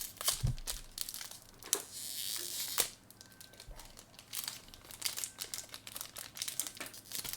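Foil Pokémon booster pack wrapper crinkling as it is handled and torn open, with a denser stretch of tearing about two seconds in, then lighter, scattered crinkles.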